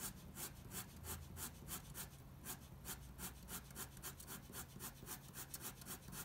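Felt-tip fineliner pen scratching quick, short hatching strokes across paper, about three to four strokes a second, as a third layer of cross-hatching goes down. Faint.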